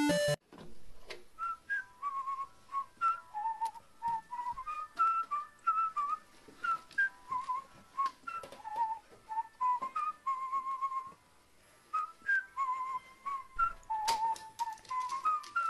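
Background music: a light whistled melody of short notes, with faint clicks among them and a brief pause about eleven seconds in.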